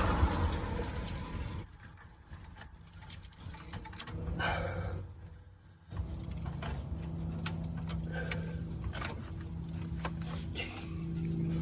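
Metal clinks and rattles, like hand tools and fasteners being handled, with one sharp knock about four seconds in. A steady low hum comes in about halfway through.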